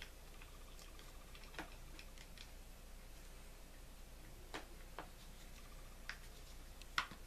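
A handful of faint clicks and taps from the small metal and plastic parts of a Johnson Sabra 4 spincast reel being handled and fitted back together, spaced irregularly, the sharpest near the end.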